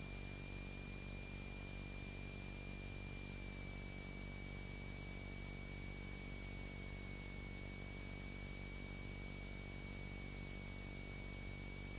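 Steady hiss and hum of a Beechcraft Sundowner's cockpit audio in flight. The engine's low drone sits under a thin steady whistle-like tone, which drops slightly in pitch about three and a half seconds in.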